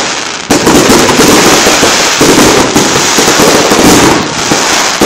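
Aerial fireworks bursting overhead in a loud, dense, rapid crackle of many small reports, with a fresh burst about half a second in and a slight fade near the end.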